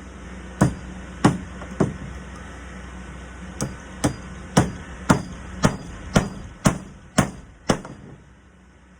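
Hammer driving hand-made nails through a door hinge into a wooden door: a dozen sharp strikes at about two a second, with a pause of nearly two seconds after the first three.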